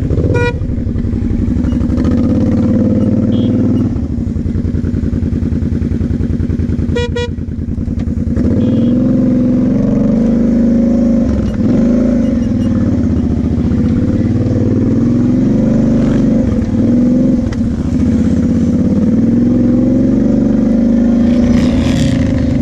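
Kawasaki KFX 700 V-Force quad's V-twin engine running under a varying throttle while riding over dirt, its pitch rising and falling again and again. Two short beeps sound, one near the start and one about seven seconds in.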